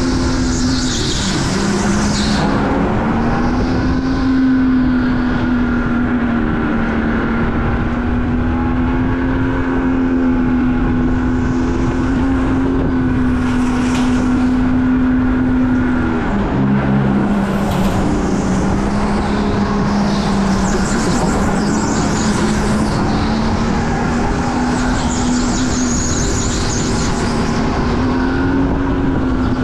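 Go-kart motor running at speed through a lap. Its steady note drops in pitch around a second in and again just past halfway, then climbs back up.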